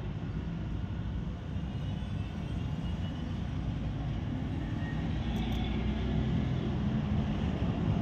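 A steady low rumble that slowly grows louder, with a faint higher whine above it.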